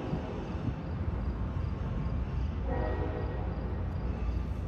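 Train horn sounding in the distance, a blast tailing off at the start and another short blast under a second long about three seconds later, over a steady low rumble.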